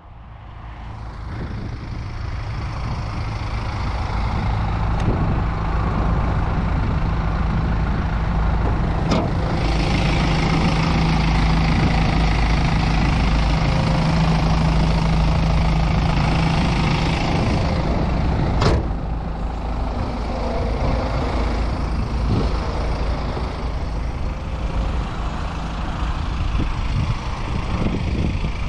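BMW X3 F25 2.0d four-cylinder turbodiesel idling steadily. It fades in at the start and sounds louder and brighter for several seconds in the middle, heard over the open engine bay. Two sharp clicks come about nine seconds apart.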